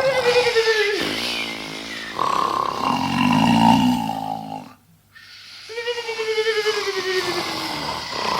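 Several men snoring loudly: rasping, rattling snores alternate with pitched tones that fall in pitch, with a brief pause about five seconds in.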